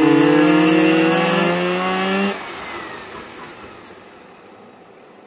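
Mazda RX-8's two-rotor Wankel rotary engine revving up under hard acceleration, its pitch rising steadily. A bit over two seconds in it cuts off abruptly as the throttle is lifted, leaving a much quieter engine sound as the car slows.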